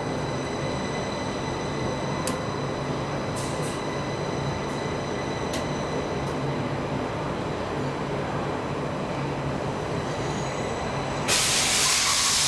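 Stockholm C14 metro car standing at the platform with its doors open: a steady low hum from the train's onboard equipment, with several thin, steady high-pitched whining tones over it and a few faint clicks. Near the end a loud burst of air hiss starts.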